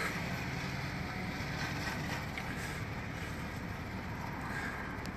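Steady vehicle noise inside a car's cabin, an even hum and rumble with no distinct events.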